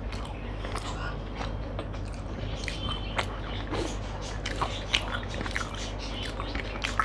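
Close-up chewing of a mouthful of rice, with wet mouth clicks and crunches scattered irregularly, and fingers mixing rice on a plate. A low steady hum runs underneath.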